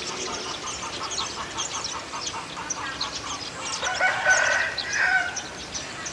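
A rooster crowing once, about four seconds in, over small birds chirping throughout.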